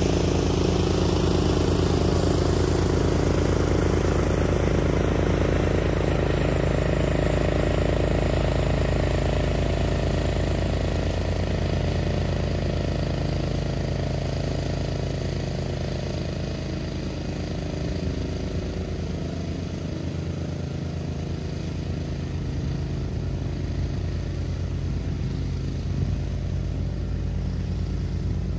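Cub Cadet 760 ES 33-inch walk-behind mower's engine running steadily while cutting grass, growing fainter as the mower moves away.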